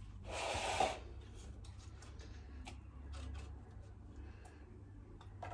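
Onion being grated on a metal box grater: one short rasping scrape near the start, then faint scrapes and light taps as the grater is handled over a plastic bowl.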